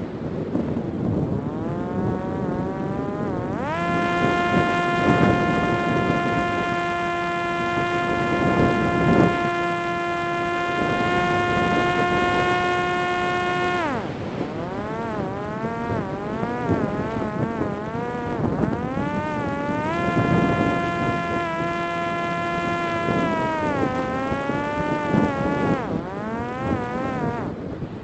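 Parrot Disco fixed-wing drone's electric pusher motor and propeller whining over rushing wind: the whine climbs in pitch over the first few seconds, holds steady for about ten seconds, drops suddenly about halfway, then wavers up and down as the throttle changes.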